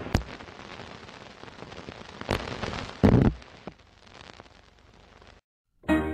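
Old-film crackle and hiss with scattered pops and clicks, and a louder thump about three seconds in; it cuts off suddenly about five seconds in, and piano music starts just before the end.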